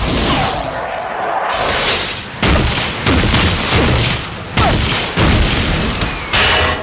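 Cartoon sound effects: a noisy run of booms and crashes, with about six sudden loud blasts roughly a second apart, stopping abruptly at the end.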